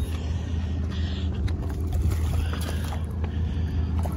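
Boat motor running with a steady low hum, with a few faint clicks.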